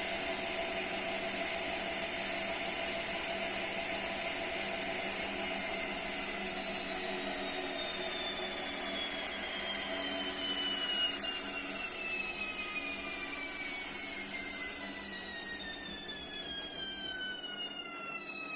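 Gorenje WaveActive washing machine motor whining at high speed with several tones, which the uploader calls horrible. From about five seconds in, all the tones fall steadily in pitch and the sound grows slowly quieter as the motor and drum slow down.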